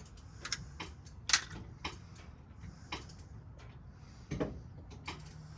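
Hand tools working on automotive wiring: about half a dozen separate sharp clicks and snips of wire cutters or strippers, the loudest about a second in.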